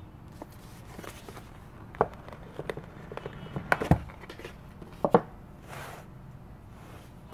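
Cardboard retail box being handled and opened: a series of light knocks and taps, the loudest a dull thunk about four seconds in, then a soft sliding rustle near six seconds as the lid comes off the base.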